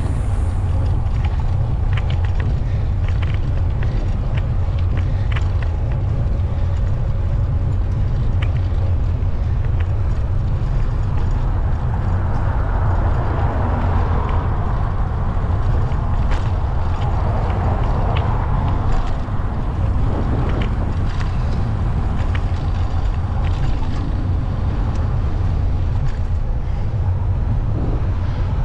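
Steady wind and road rumble picked up by a microphone on a moving bicycle, with motor traffic around it. A vehicle passing swells and fades in the middle of the stretch.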